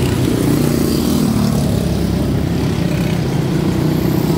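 Several quarter midget race cars running together, each with a single-cylinder Briggs & Stratton Animal engine. Their buzzing overlaps, and the pitches shift a little up and down as the cars go around.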